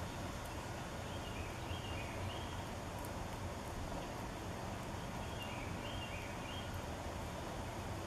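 Steady outdoor background noise with a low rumble, and a songbird twice singing a short phrase of alternating higher and lower whistled notes, about a second in and again near the sixth second.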